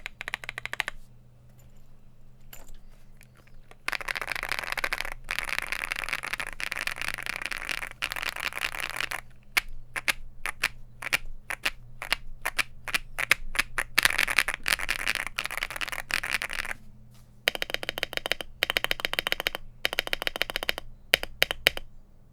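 Mechanical keyboard with Akko Cream Blue Pro tactile switches, SA profile keycaps and a polycarbonate plate, being typed on in fast runs of keystrokes with a few quieter stretches between.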